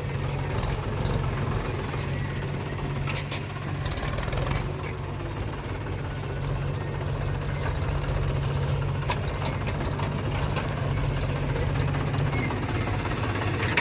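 Heavy diesel engine running steadily with a knocking clatter, with short harsh noisy bursts, the longest about three to four and a half seconds in.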